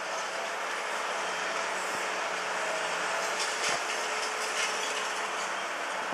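Liebherr 954 long-front demolition excavator running under load, with its diesel engine and hydraulics keeping up a steady hum and whine. A few short sharp knocks, about halfway through, come from concrete and debris breaking under the demolition attachment.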